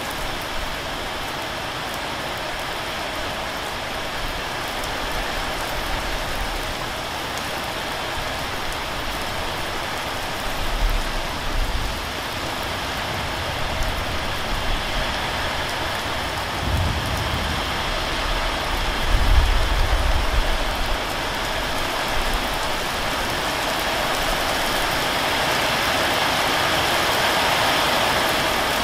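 Steady heavy rain falling, growing a little louder near the end. A few brief low rumbles come through midway.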